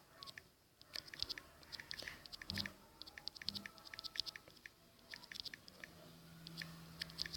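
A quick, irregular run of light clicks, several a second, with a faint low hum setting in near the end.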